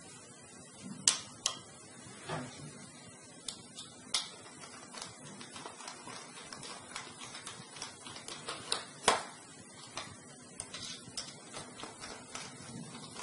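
Irregular clicks and light knocks of a hard drive and its mounting tray being handled and fitted into a desktop computer, with two sharp clicks about a second in and the loudest click about nine seconds in.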